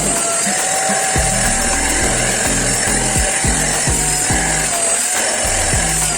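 Deerma DX700 stick vacuum cleaner running steadily, with a continuous suction hiss and a motor whine whose pitch wavers slightly now and then. Soft background music plays underneath.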